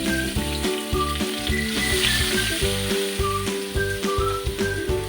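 Butter and flour sizzling in a hot pan as they are stirred together, with background music with a steady beat playing over it.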